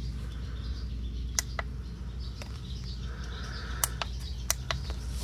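Button clicks on an ANCEL BA101 handheld battery tester: six sharp clicks in three close pairs as its keypad is pressed, over a steady low hum.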